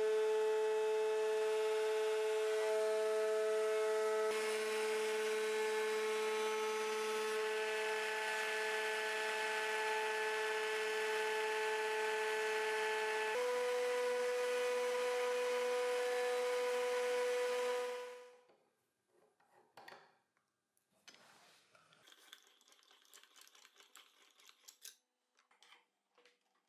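Trim router in a router table running at speed with a chamfer bit, a steady high whine that steps slightly higher in pitch about 13 seconds in, then switched off and stopping about 18 seconds in. After that, faint clicks of handling the bit and wrench.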